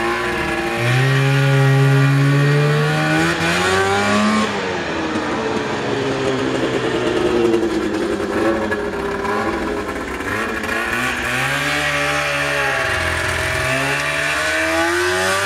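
1975 Arctic Cat Cheetah snowmobile's two-stroke engine running under throttle as the sled rides over the snow. Its pitch climbs over the first few seconds and drops sharply about four seconds in. It runs lower and steadier through the middle, then climbs again as the sled heads back toward the listener near the end.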